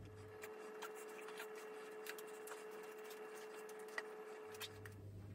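Faint taps and scrapes of a silicone spatula against a glass bowl as whipped cream is scooped out, a slightly sharper tap about four seconds in, over a faint steady hum.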